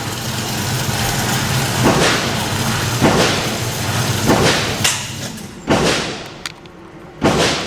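Glock 26 Gen 4 9mm pistol firing a slow string of single shots, roughly one a second, each with a short echo.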